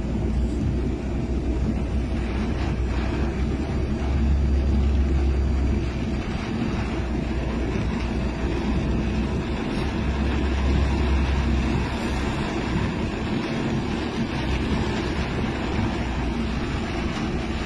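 Steady rush and splash of floodwater and spray as a car drives through a flooded street, heard from inside the car, under a low rumble that swells twice, about four and ten seconds in.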